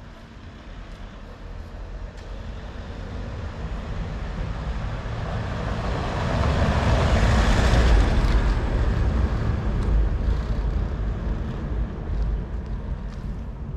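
A motor vehicle passing by, growing louder to a peak about eight seconds in and then fading away.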